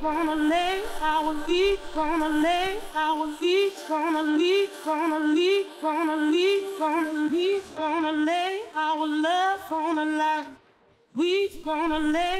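Female lead vocal isolated from a full mix by AI stem separation on a mild setting, singing a melody with rising pitch glides, with a short break about eleven seconds in. Faint leftover artifacts of the removed instruments remain in the vocal.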